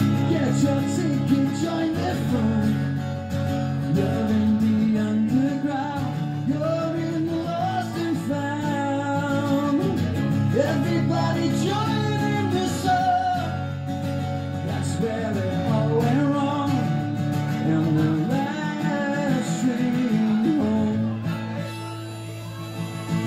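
Strummed acoustic guitar with a harmonica played from a neck rack carrying the melody: an instrumental break in a live song.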